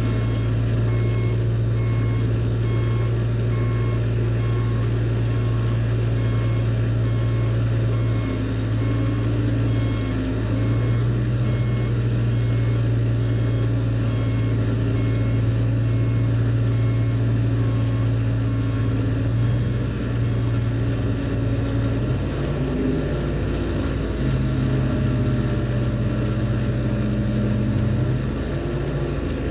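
Heavy crane machinery running steadily while it moves shipping containers, its engine hum shifting pitch a few times. A repeating warning beep sounds at an even pace through the first half and fades later.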